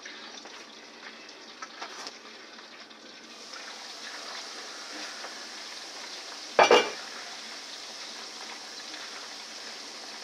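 Homemade fries sizzling in hot canola oil in a pot, a steady frying hiss that grows a little brighter a few seconds in. One loud knock sounds about two-thirds of the way through.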